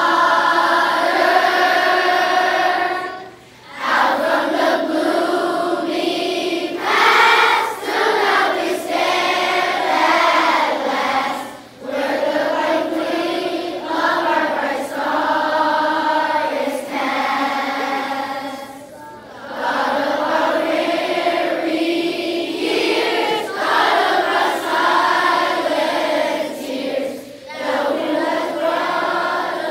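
A large group of elementary schoolchildren and teachers singing together, in long held phrases with brief pauses for breath about every eight seconds.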